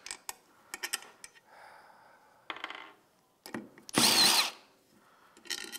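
Cordless power driver spinning a bolt in the stripped threads of an aluminum engine case: a short burst about two and a half seconds in and a louder, longer burst around four seconds in, its motor pitch rising and falling. Sharp metallic clicks of the bolt and socket come at the start and near the end.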